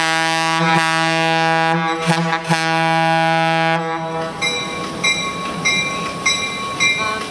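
Diesel locomotive air horn sounding one long blast of about four seconds, dipping briefly a few times. The locomotive's bell rings about twice a second before and after the blast as the train approaches slowly.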